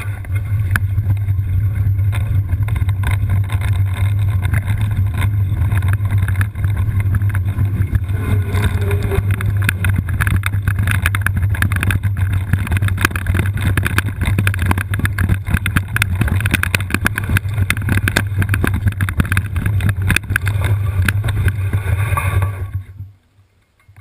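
Wind buffeting the microphone with dense rattling and clatter from an all-terrain wheelchair rolling down a rough trail. The noise cuts off abruptly about a second before the end.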